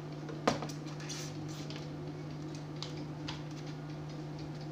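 A cable plug being handled and pushed into the back of a Soundqueen SQ 700A wireless microphone receiver: one sharp click about half a second in, then scattered light ticks and rattles. A steady low hum runs underneath.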